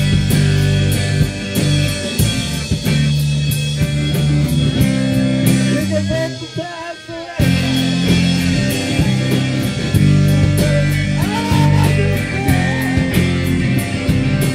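Live rock band playing loud, with electric guitars, bass and drums with steady cymbal strokes. About six seconds in the band drops out for about a second and a half, leaving a lone wavering tone, then crashes back in.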